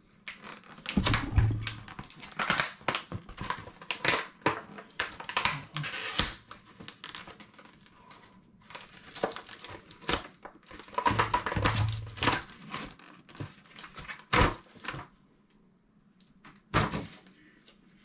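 Cardboard box and paper packaging rustling and crinkling in irregular bursts, with a few low thumps, while a small solution booklet is dug out of the box.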